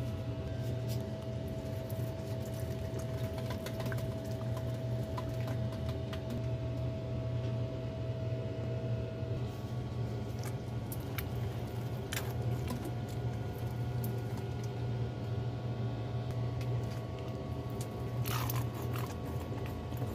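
Water pattering and dripping onto potted plants being watered, with many small scattered ticks and splashes over a steady low hum.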